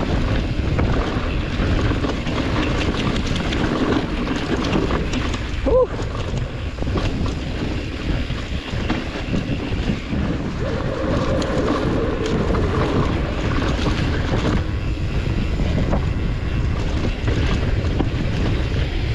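Wind buffeting the microphone of a camera on a moving mountain bike, over tyres rolling on rock and the bike rattling with many small clicks and knocks. A brief squeak about six seconds in.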